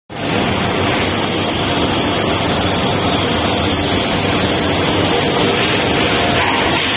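MIG (gas metal arc) welding arc burning continuously, a steady, unbroken hiss at an even level.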